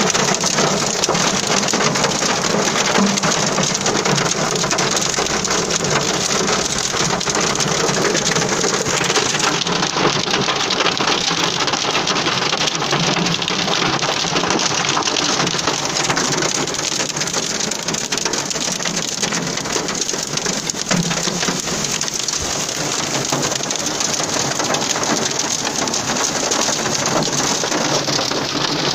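Hail and heavy rain drumming on a car's roof and windshield, heard from inside the car: a dense, steady clatter of countless small impacts.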